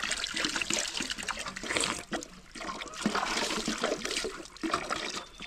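Water splashing and trickling unevenly, with a short lull about midway.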